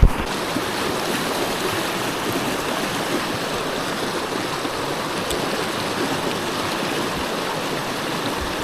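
Stream water running steadily, an even rushing wash, with a brief knock right at the start.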